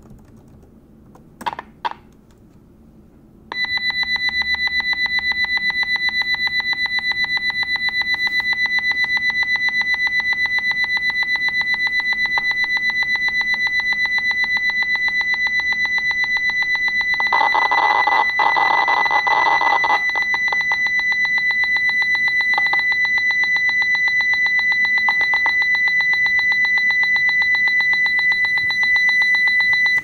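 Raw data of a Linux boot partition played as audio through aplay: a steady, high-pitched, rapidly pulsing electronic tone, like an alarm. It starts abruptly about three and a half seconds in, after a couple of clicks, and a rougher, noisier stretch comes about two-thirds of the way through.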